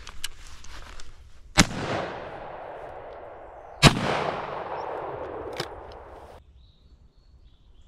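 Two shotgun shots about two seconds apart, fired at a woodcock. Each is a sharp crack followed by a long echo that fades away.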